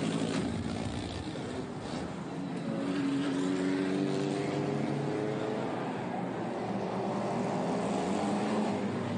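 Pre-war racing car engine at speed: a car passes close by, then an engine note rises steadily as it accelerates and holds high.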